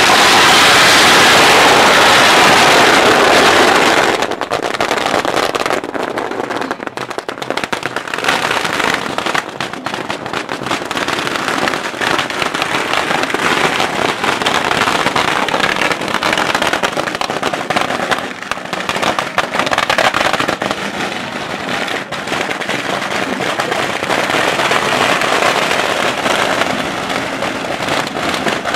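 Firecrackers going off without a break in a dense, rapid crackle. It is loudest for the first four seconds, then carries on a little quieter to the end.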